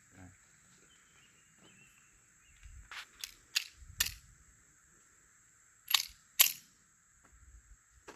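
Six sharp cracks from a Taurus Spectrum .380 ACP pocket pistol being fired with flat-nose ammunition. Four come in quick succession about three seconds in, and two more follow about two seconds later.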